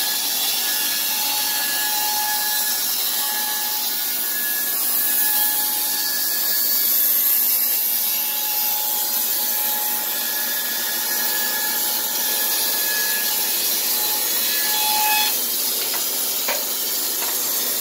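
Wood-Mizer LT15 portable band sawmill running and sawing timber: a steady hiss from the electric motor and band blade, with a whine that comes and goes and stops about fifteen seconds in.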